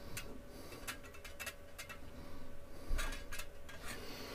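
Scattered light ticks and scrapes of a soldering iron tip worked against an aluminium plate, over a faint steady hum.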